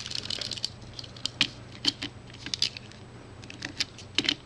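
Small scattered clicks and ticks, with a brief rustle at first, from an RJ45 plug and Cat5 cable being handled as the wires are seated in the connector.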